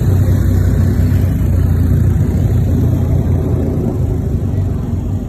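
Distant jet engine noise from the Thunderbirds' F-16 fighters flying overhead: a steady low rumble that eases off slightly toward the end.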